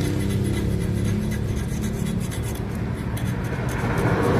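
Sandpaper rubbing and scraping on a Honda Scoopy CVT part, a dry, irregular rasping over a steady low hum.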